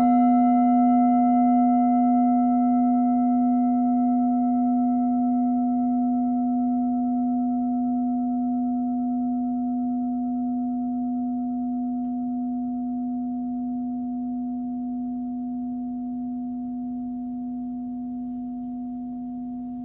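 Forged singing bowl tuned to the note B, about 249 Hz, struck once and left to ring. It sounds a low steady tone with several fainter higher tones above it, fading slowly over about twenty seconds.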